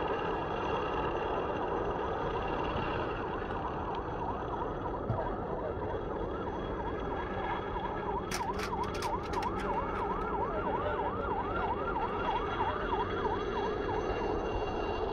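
A vehicle siren wailing in fast up-and-down sweeps, about two a second, clearest through the middle and second half, over a steady rushing background. A quick run of sharp clicks or cracks comes about eight to ten seconds in.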